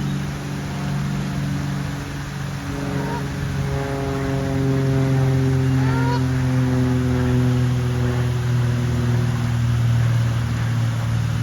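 A motor engine drones past, steady at first, then slowly falling in pitch as it grows louder. Two short bird calls glide upward about three and six seconds in.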